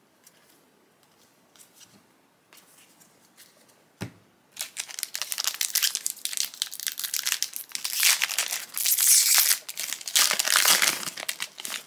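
A foil trading-card booster pack wrapper being torn open and crinkled by hand. A knock comes about four seconds in, then several seconds of crackling crinkle, loudest near the end.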